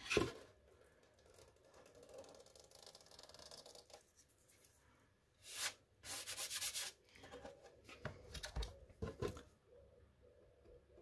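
Masking tape being peeled back from the paint of a model-aircraft cowl. There is a short rip at the start and a longer crackling peel about six seconds in, then a few handling bumps.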